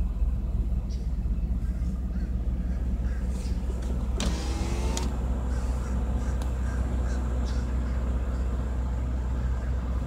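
Steady low rumble of a car engine, heard from inside the cabin. About four seconds in there is a brief noisy stretch with a whine rising in pitch, lasting under a second.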